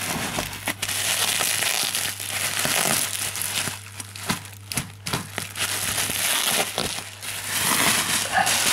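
Cardboard and sellotape being torn and crumpled by hand as a box is forced open: a dense crackling and tearing with scattered sharp snaps, easing briefly about four seconds in before picking up again.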